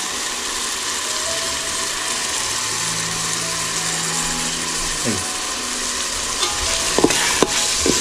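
Chopped onion and tomato frying in oil and ghee in a steel pot, sizzling steadily as ginger-garlic paste is stirred in with a steel spoon. A few clicks of the spoon against the pot in the second half.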